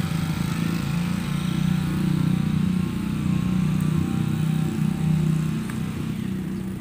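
A small petrol engine running steadily at a constant speed, a little louder in the middle and easing off near the end.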